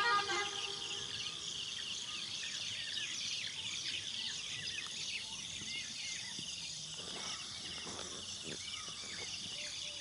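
Steady outdoor chorus of crickets and other insects, many overlapping high chirps, with a few short falling chirps mixed in.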